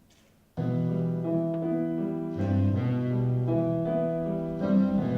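Piano music starts about half a second in, playing slow, sustained chords.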